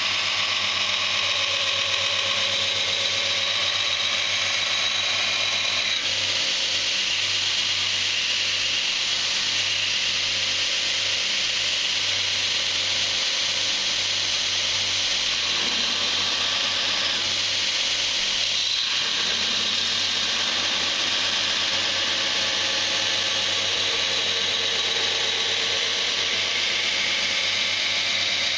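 Belt grinder running with a steel knife blade pressed against the belt, a steady grinding hiss over the motor's low hum. The steel is D2 tool steel.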